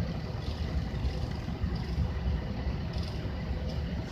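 A large truck's engine running steadily with a low rumble, with no other event standing out.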